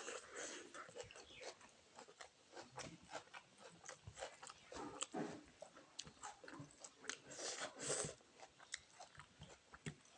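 A person chewing and biting food close to the microphone, mukbang-style, with irregular clicks and smacks of the mouth, loudest about eight seconds in.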